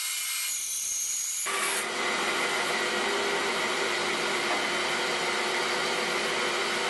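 Delta 14-inch bandsaw running and ripping a thin teak veneer. About a second and a half in, the noise grows louder and fuller, then holds steady.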